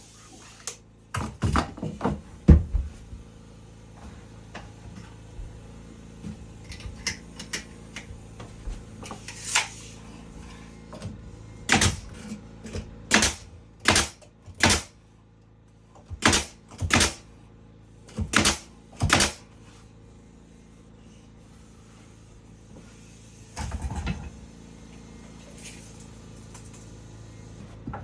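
Hammer blows on wood, sharp strikes in quick pairs about half a second apart, with a flurry of knocks near the start and quieter handling noise between.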